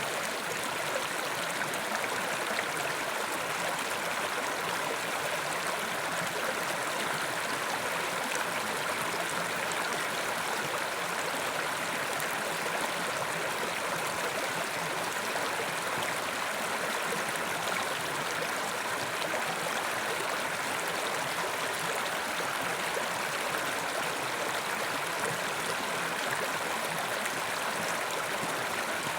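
Mountain river flowing over rocks: a steady rush of water with a constant babble.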